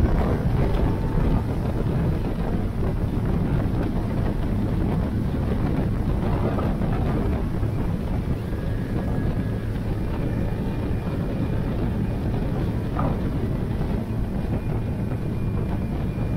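Mercury Verado 600 hp V12 outboard running steadily at speed on a planing RIB, its hum mixed with rushing water from the wake and heavy wind buffeting the microphone.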